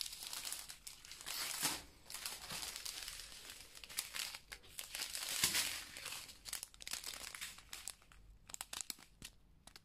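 Small clear plastic zip bags of diamond-painting drills crinkling as they are handled and set down. The crinkling comes in irregular bursts, busiest over the first six seconds, then thins to a few light clicks near the end.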